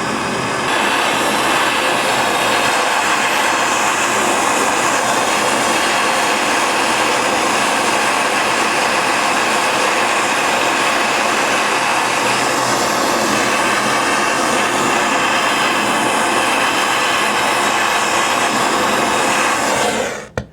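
Gas torch flame burning with a steady, loud hiss while brazing an access valve into a refrigerator's copper line; it gets louder about a second in and cuts off sharply near the end as the torch is shut off.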